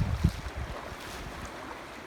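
Flowing river water, heard as a steady rush, with wind buffeting the microphone in low gusts during the first half second.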